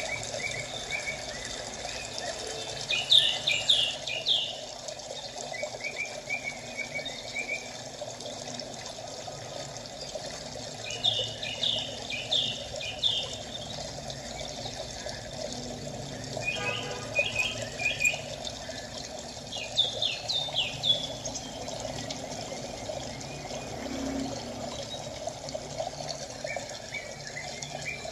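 Steady trickling water, with a small bird chirping in quick runs of short high notes several times over it.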